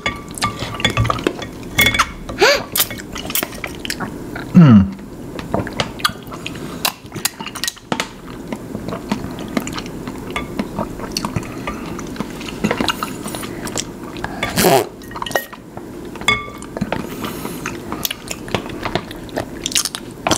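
Eating and drinking sounds from a glass bowl of jelly cocktail: sips and slurps through a stainless steel straw, with scattered short clinks and knocks of the straw and a wooden spoon against the glass.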